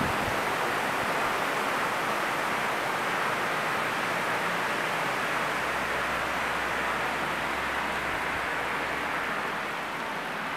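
Heavy downpour of rain falling steadily, a dense even hiss.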